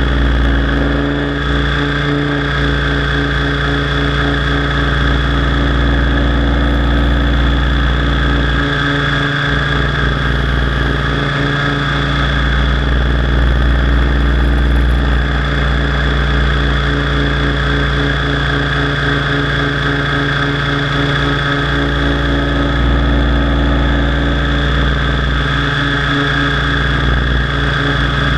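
Align T-Rex 700 DFC RC helicopter in flight, heard from its onboard camera: a steady high whine from the motor and gear drive over a low rumble of the rotor and wind on the microphone.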